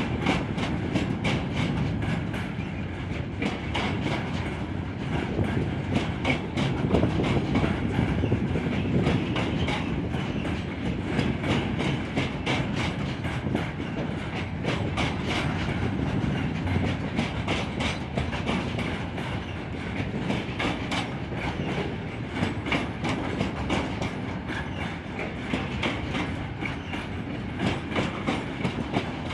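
Container flat wagons of an intermodal freight train rolling past: a steady rumble of steel wheels on the rails, with a dense run of wheel clicks all the way through.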